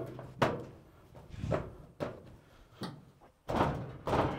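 Stainless steel sheet being pressed and shifted into place on a steel table frame: a few separate knocks and thuds, then a longer rattle near the end.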